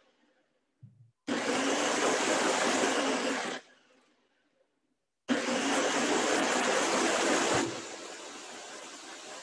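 Countertop blender run in short pulses, crushing frozen banana and ice in milk: two bursts of a couple of seconds each with a pause between them, then a drop to a much quieter steady noise near the end.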